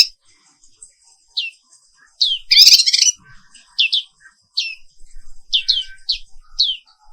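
White-eye (pleci) singing: a string of short, high, downward-sweeping chirps about one or two a second, with a louder burst of rapid twittering a little before halfway.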